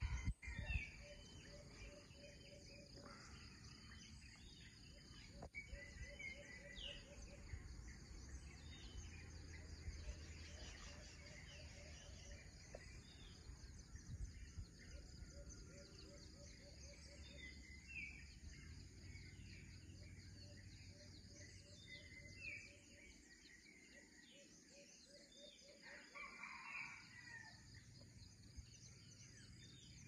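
Faint tropical dawn chorus: scattered short bird calls and chirps over a steady high insect hum, with a repeated low note sounding in short runs of about four a second. A brief louder low noise comes in the first second.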